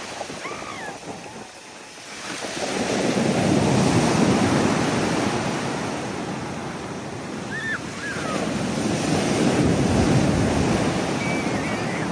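Sea waves breaking and washing in, with two surges, the first about two seconds in and the second about eight seconds in. Wind buffets the microphone, and a few faint, short high chirps come through near the start and end.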